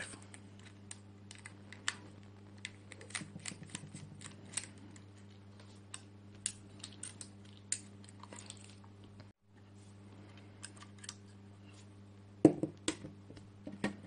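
Small, irregular clicks and taps of hand work on a laptop hard drive in its metal bracket: a screwdriver backing out the bracket screws, the drive being lifted out of the bracket and the parts handled. A sharper knock comes near the end.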